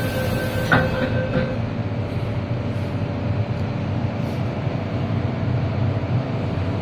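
MTR M-Train running, heard from inside the carriage: a steady rumble of wheels and running gear, with a faint steady whine that dies away about a second and a half in and a single sharp click about a second in.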